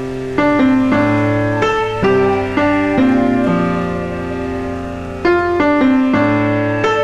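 Slow, gentle piano music: single notes and chords struck about every half second, some held and left to ring for a second or two.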